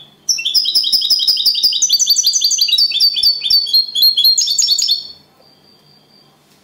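European goldfinch singing the trained 'copia Málaga' song: a fast run of short, bright chirping notes, several a second, stopping about five seconds in.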